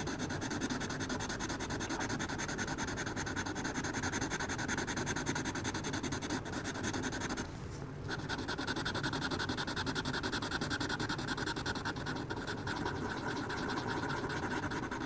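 Sharpie fine-point marker coloring in on drawing-pad paper with rapid back-and-forth strokes: a steady scratchy rubbing that stops briefly about halfway through, then goes on.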